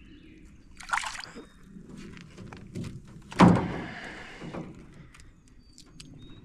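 Water splashing at the side of a jon boat as a freshly caught crappie is handled, then a loud hollow thunk against the boat with a short sloshing tail, followed by small clicks of fishing tackle being handled.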